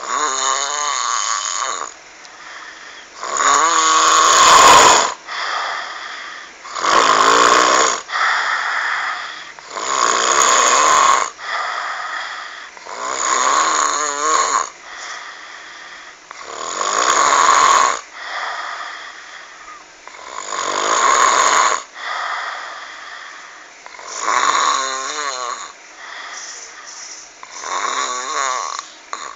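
Loud snoring from a sleeper: one long snore about every three and a half seconds, nine in all.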